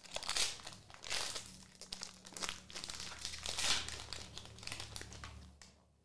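Foil wrapper of a trading card pack crinkling in the hands as it is opened, a string of irregular rustles that stop shortly before the end.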